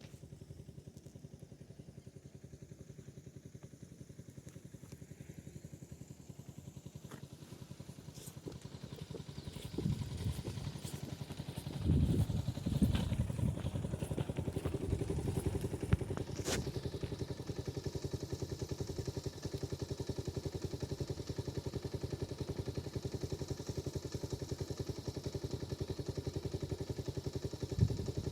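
An engine running with a fast, even pulse. It grows louder about ten seconds in, with a few clattering knocks around twelve to thirteen seconds, then runs on steadily.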